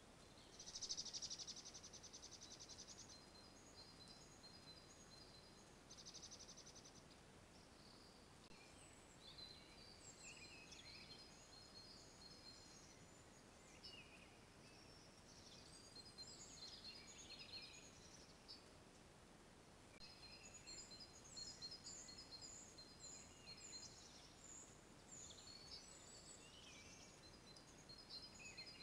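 Faint songbirds singing: a fast trill about a second in, the loudest moment, then chirps and warbled phrases coming and going over a steady faint hiss.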